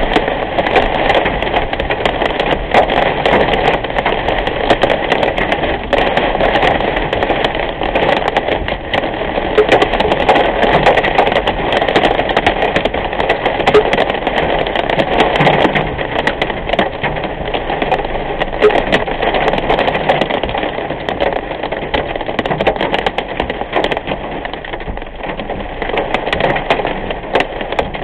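Heavy storm rain pelting a car's windshield and roof, heard from inside the moving vehicle, with many sharp clicking hits from the larger drops or small hail over steady road and engine noise.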